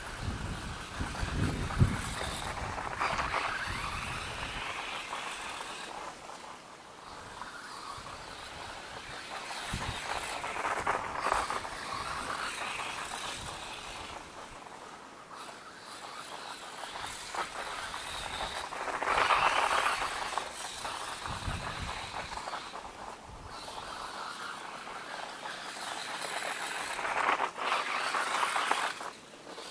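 Four-wheel-drive RC truck driving through snow, its motor and tires surging up and fading away again about four times. There are a few low thuds near the start and partway through.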